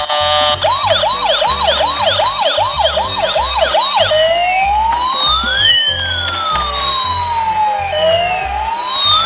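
Emergency-vehicle siren sounding a fast yelp, about three rising whoops a second, then switching about four seconds in to a slow wail that climbs, falls and starts climbing again near the end. A low pulsing beat runs underneath.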